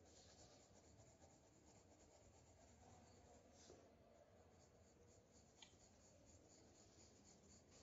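Faint scratching of a graphite pencil on paper, with rapid short shading strokes repeating several times a second, and one sharper tick about two-thirds of the way through.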